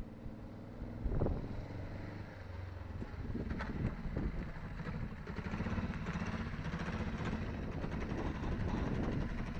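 Kawasaki ER-5 parallel-twin engine running, louder and higher from about three seconds in. The owner says this engine idles properly but bogs down and smokes black at high revs, which he puts down to a worn-out carburettor.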